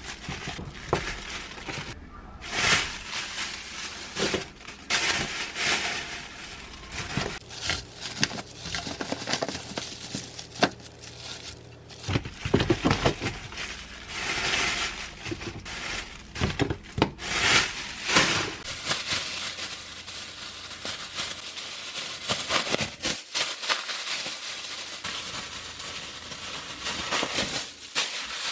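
Thin plastic bags and disposable plastic gloves crinkling and rustling in irregular bursts as frozen thin-sliced pork is packed into the bags by hand, with a few light knocks. Near the end the filled bags are gathered and tied.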